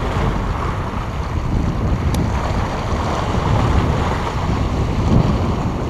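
Wind buffeting the microphone over small waves washing and splashing against the jetty's granite boulders.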